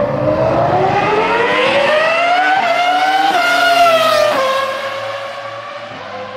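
Rally car engine at high revs, its pitch climbing for about four seconds, then dropping sharply and holding at a steady, lower pitch as the level falls.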